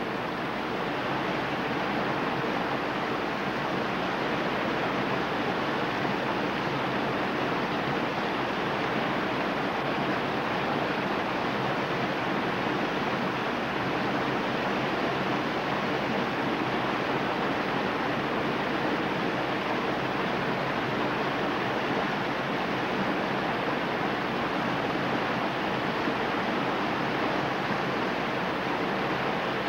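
Whitewater pouring over a steep creek drop: a steady, unbroken rush of water.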